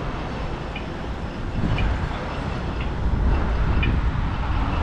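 Low, steady rumble of riding a bicycle through city streets, with wind and rolling noise. It grows louder about three seconds in, and a faint tick comes about once a second.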